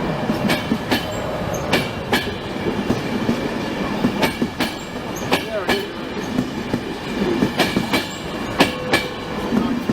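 Train wheels rolling over rail joints: a steady rumble with sharp, uneven clicks, about one or two a second.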